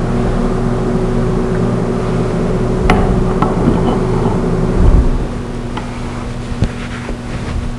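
Steady machine hum, easing a little about five seconds in, with a few sharp metal clicks and a low clunk as a metal block is clamped in a bench vise.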